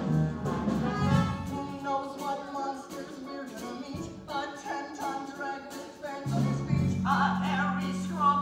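Musical theatre number: voices singing over instrumental accompaniment, with held low notes underneath.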